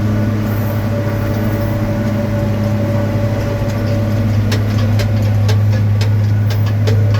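Tractor engine running steadily under load while pulling a baler, with a run of irregular clicks and rattles starting a little past halfway.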